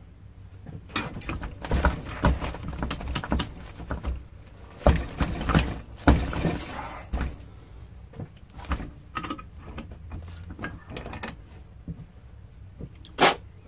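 Clanks, rattles and knocks of metal being handled as a steel bench vise is loosened and a cast copper ingot is taken out of its jaws. The knocks are busiest in the first seven seconds, thin out after that, and there is one sharp knock near the end.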